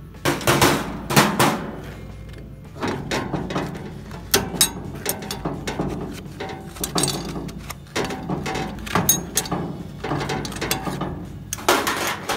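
Irregular metal clanks, knocks and scrapes as a C-clamp and steel bracket are taken off a freshly brazed cast-aluminum engine case resting on a cast-iron grill grate, louder near the start and again near the end.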